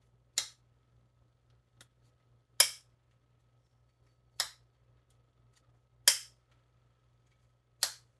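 Traditional Sheffield pocket knife's blade being worked open and shut, its backspring snapping the blade into place: five sharp snaps about every two seconds, with a couple of faint clicks between them. The joint is being broken back in after straightening in a vise and oiling, to loosen the tightened bolsters.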